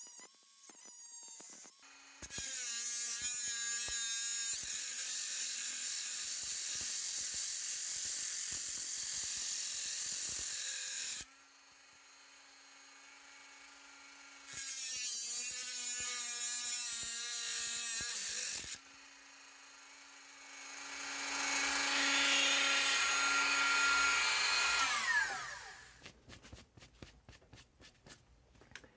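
Handheld rotary tool with an abrasive cut-off disc running at high speed and grinding through the back plate of a combination padlock into its steel pins: a high whine with a hiss over it. It cuts in three spells with short pauses between, and near the end the whine falls away as the tool spins down.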